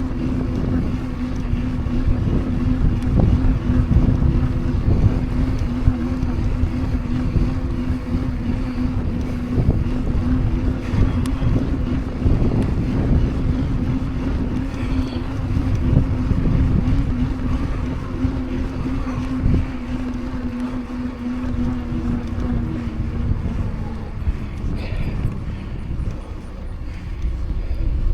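Mountain bike's knobby tyres humming on pavement at speed, with wind rushing over the microphone; the hum fades out about 24 seconds in.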